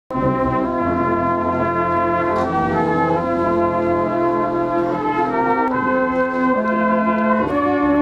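Brass band playing a slow piece in held chords, the notes changing every second or so over deep tuba bass notes.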